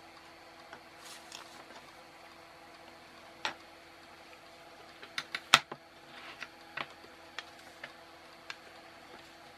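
Scattered small clicks and taps from handling a kit circuit board and its component leads, with a quick cluster of sharp clicks a little past halfway the loudest, over a faint steady hum.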